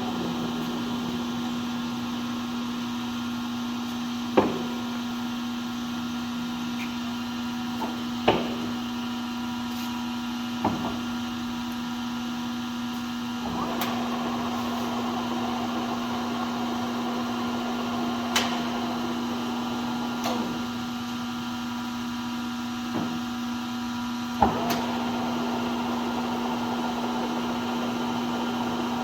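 LeBlond Regal engine lathe running with a steady mechanical hum, broken by several sharp clicks or knocks.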